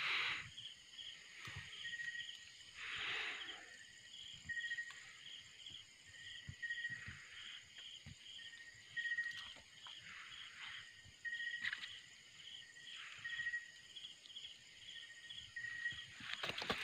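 Night chorus of crickets and other insects: a steady high trill, with a pulsing chirp about three times a second and a short note repeating roughly once a second. Scattered brief rustles sound close by.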